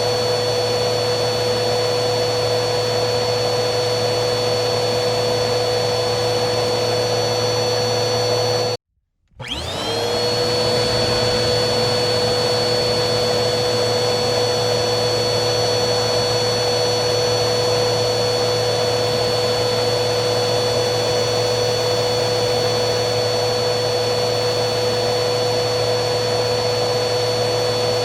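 Vacuum cleaner motor running steadily with a high whine. About nine seconds in it cuts out for a moment, then comes back with its whine rising as the motor spins back up to speed.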